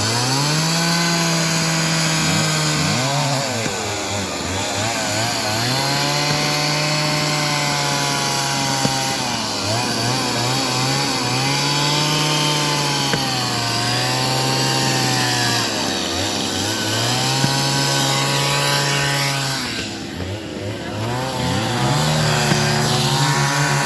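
Chainsaw running at high revs, its engine note sagging and recovering every few seconds as it bites into wood. About twenty seconds in it drops off briefly, then revs up again.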